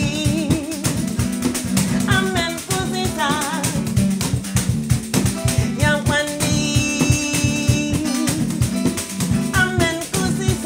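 A band playing a song live: plucked guitar and drums keep a steady beat, and a voice sings wavering lines over it.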